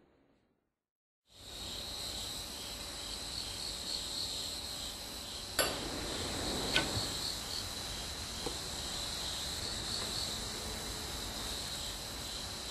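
A steady chorus of night insects chirping sets in about a second in after a moment of silence. Around the middle come two sharp clicks as a cigarette is lit.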